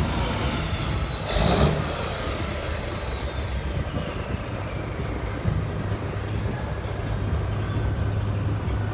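Heavy truck engine running with a steady low hum. About a second and a half in there is a brief rush of noise, and a high whine slowly falls in pitch over the following few seconds.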